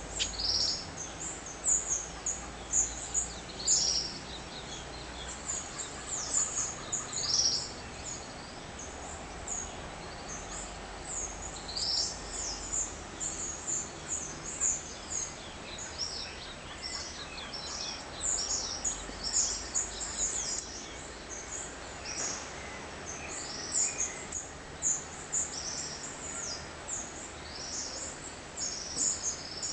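Dawn chorus of songbirds: many short, high chirps overlap without pause, while a lower, longer call repeats every few seconds.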